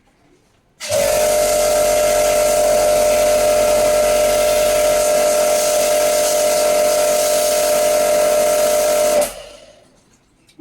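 Portable pressure-washer jet pump running while spraying water to clean an air conditioner. A steady motor whine sits under a loud hiss of spray. It starts abruptly about a second in and stops shortly before the end.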